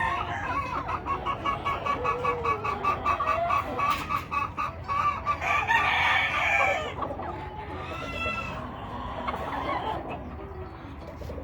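Gamefowl chickens calling: a quick run of repeated clucks, about five a second, then a rooster crowing about halfway through, with a shorter call following.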